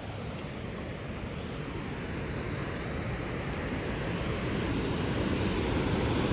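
A steady rushing roar with no clear pitch, growing gradually louder.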